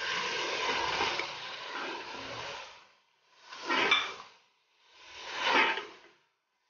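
Beef mince frying in hot oil in a metal pot as chopped tomatoes are added and stirred in with a spatula: a steady sizzle with some scraping. It cuts out abruptly after nearly three seconds and returns as two short swells of about a second each.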